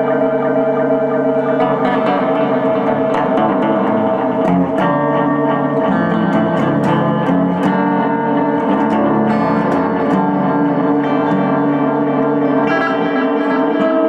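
Instrumental music: plucked string notes ringing with echo over a steady sustained drone.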